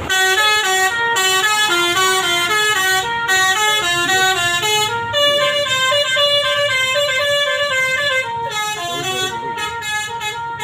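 Bus 'telolet' musical horn playing a fast melody, its notes stepping up and down several times a second, with a few longer held notes near the middle.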